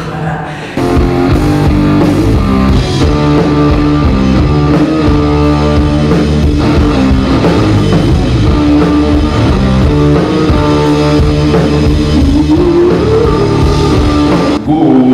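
Rock played live by an electric guitar and a drum kit, kicking in abruptly about a second in and running loud and dense.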